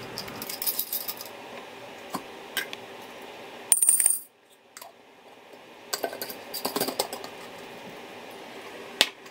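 Half-dollar coins clinking against each other and a small glass jar in several short bursts, then the jar's metal screw lid being handled, with one sharp click near the end.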